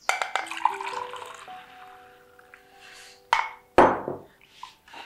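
White ceramic mugs clinking and clattering as they are handled, then two sharp knocks of a mug set down on a table a little after three seconds in, the second the loudest and ringing briefly. Soft background music with held notes plays underneath.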